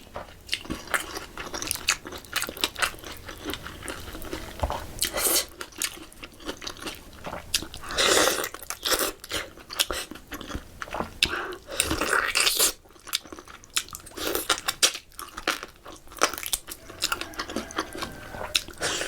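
Close-miked chewing and biting of pork curry: irregular wet smacks, clicks and crunches in a steady stream, with louder mouthfuls several times.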